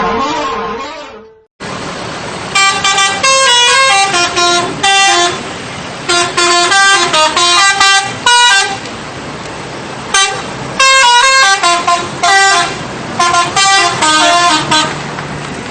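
Indonesian bus 'telolet' horn, a multi-tone musical horn, playing its stepping melody in several short phrases one after another over steady traffic noise.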